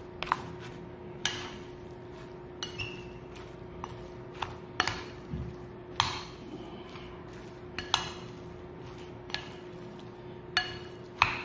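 Fork and spoon clinking and scraping against a ceramic bowl while mixing a thick ground-meat filling: irregular clinks about once a second, some ringing briefly, over a steady low hum.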